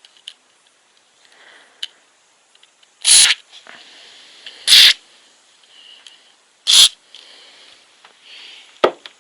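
WD-40 aerosol can sprayed in three short hissing bursts into the rusted pump, to free its stiff-turning impeller. A sharp knock near the end.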